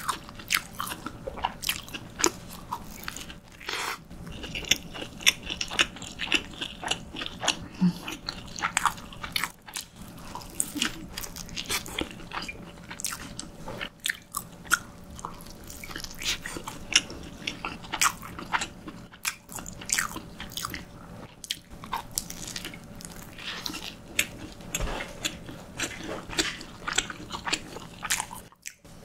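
Close-miked eating of a small hamburger on a soft dinner-roll bun: a dense, irregular run of wet mouth clicks and smacks as it is bitten and chewed.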